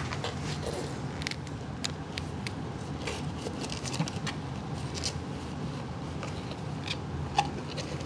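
Light scratching and tapping as a kitten moves inside a closed cardboard box, nudging the lid, with a sharper knock about seven seconds in, over a steady low hum.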